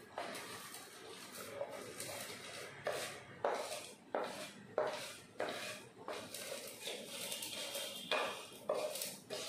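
A spatula scraping sautéed curry leaves, green chillies and roasted lentils off a plate into a stainless steel mixer jar: a run of short, sharp scrapes and clinks, coming thick and fast over most of the stretch.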